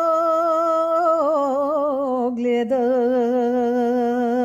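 A woman's solo voice singing a Bulgarian folk song unaccompanied. She holds a long note, slides down through a wavering ornament, takes a quick breath, then holds another lower note with vibrato.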